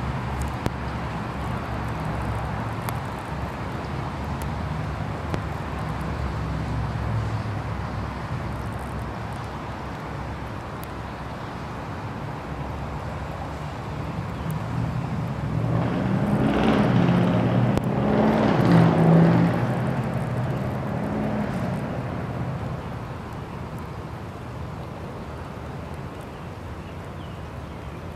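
Steady background road-traffic rumble, with one vehicle passing that swells up and fades away across several seconds around the middle.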